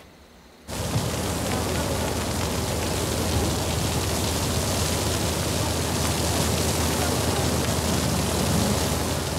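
Steady rushing noise of a house fire, with a low rumble underneath, starting suddenly about a second in.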